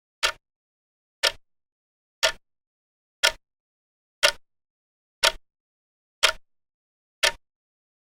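Short, sharp ticks repeating evenly once a second, about eight of them, with silence in between.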